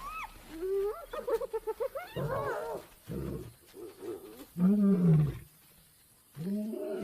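Hyenas squealing and giggling in high, rapid calls over a kill, followed by a lion's deep growling roars as he drives them off. The loudest roar comes about five seconds in, with another near the end.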